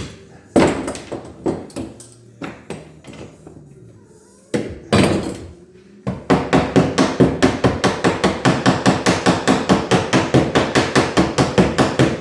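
Hammer striking fastenings into a wooden boat's new ribs: scattered single blows at first, then from about halfway a fast even run of lighter strikes, about five a second.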